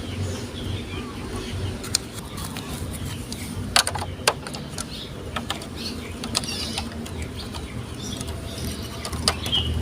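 Marbles rolling along a plastic Lego Duplo marble-run track, with a few sharp clicks as they knock against the bricks, the loudest pair about four seconds in.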